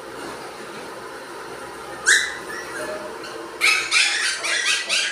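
Beagle puppies yipping at play: one sharp high yelp about two seconds in, then a quick run of short, high yips from about three and a half seconds in.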